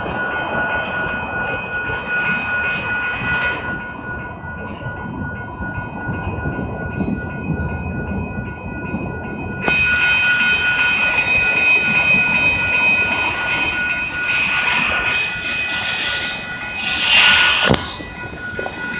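Norfolk Southern freight train of covered hoppers and gondola cars rolling through a level crossing, its wheels rumbling and clattering over the rails, with the crossing bell ringing steadily. About ten seconds in the train noise turns louder and brighter.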